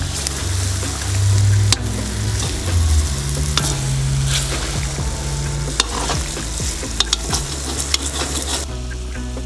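Chicken pieces sizzling as they fry in hot butter in a kazan cauldron, with a metal slotted skimmer scraping and clicking against the pot as the pieces are stirred and turned.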